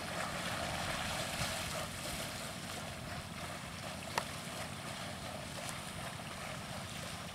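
Steady wind rushing over the microphone, with a low rumble, and a single sharp click about four seconds in.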